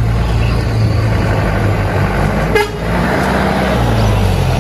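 Tanker truck's diesel engine running low and heavy as the truck drives close past, with a motor scooter going by at the start. A brief horn toot sounds about two and a half seconds in.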